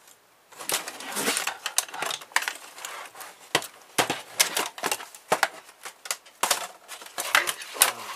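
Laptop being taken apart by hand: plastic case parts clicking, knocking and scraping against each other and the table in quick, irregular bursts.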